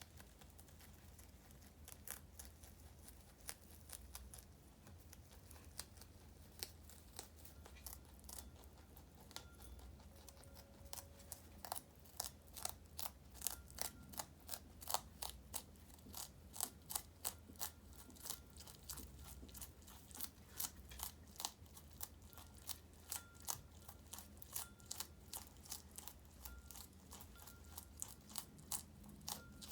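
Two rabbits chewing romaine lettuce: crunching bites, scattered at first, then coming several a second from about twelve seconds in.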